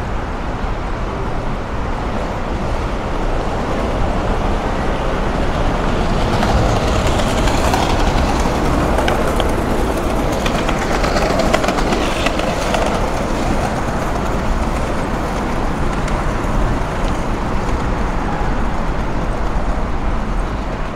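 City street noise with a vehicle passing: a steady rumble that grows louder for several seconds in the middle, with a few light clicks, then fades back.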